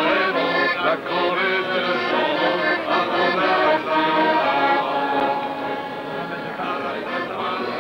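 Piano accordion playing a folk tune with a group of men singing along in chorus. It gets quieter a little past the middle.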